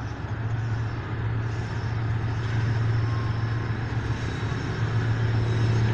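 Steady low engine drone over a rumbling background, slowly growing louder.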